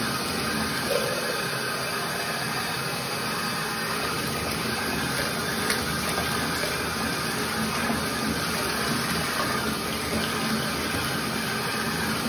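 Water rinsing the soap out of a brass trombone slide: poured from a cup through the slide tubes and splashing steadily into a bathtub of soapy water.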